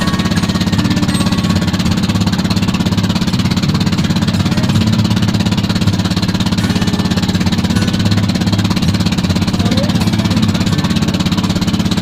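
A wooden motorboat's engine runs steadily with a fast, even pulsing beat, over the rush of water breaking along the hull.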